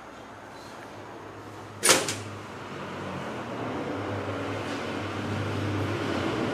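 A single loud bang about two seconds in, with a short ring after it, then a low steady hum that slowly grows louder.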